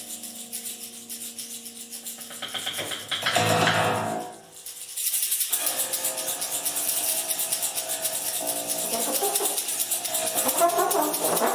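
Trombone played in free improvisation: held notes with a fast fluttering pulse, a louder swell about three seconds in, a short drop-out just after, then a denser, noisier passage.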